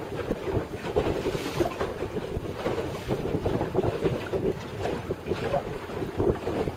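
Wind buffeting the microphone in a rough, uneven rush, with sea water washing against the inflatable boat's hull.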